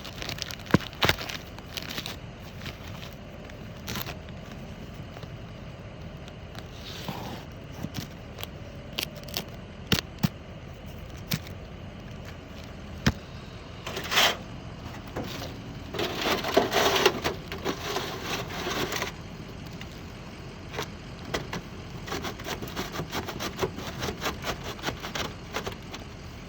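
Roofing handwork: asphalt shingles and underlayment being scraped, cut and handled around a box roof vent, with scattered sharp clicks and knocks and a few short scraping stretches, the longest a little past the middle.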